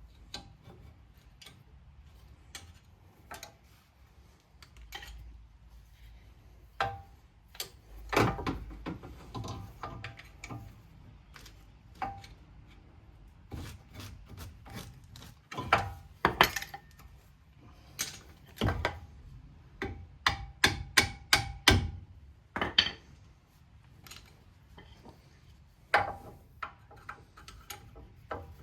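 Metal tools and brake parts clinking and knocking irregularly while being handled at a car's front brake caliper during a pad change. Some strikes ring briefly, with a quick run of about six knocks roughly three quarters of the way through.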